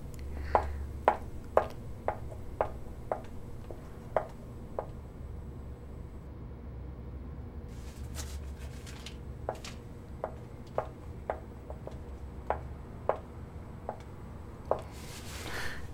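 Footsteps of heeled shoes on a hard floor: sharp clicks about two a second, walking away, then more steps coming back after a short gap, over a low steady hum.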